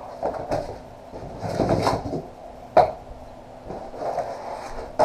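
Rustling and knocking of papers and packaging being handled in a cardboard box, with a louder rustle around two seconds in and a sharp knock just under three seconds in.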